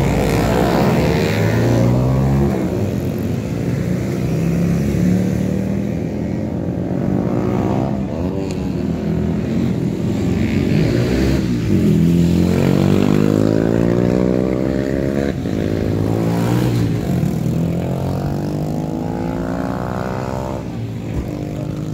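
Race motorcycle engines accelerating away one after another, their pitch rising again and again.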